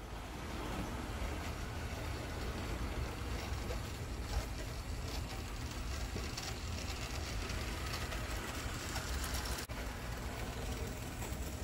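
Bachmann HO scale PCC trolley rail bus running along the track: its small motor and gears whir steadily and the wheels rattle over the rails, with a brief dropout near the end.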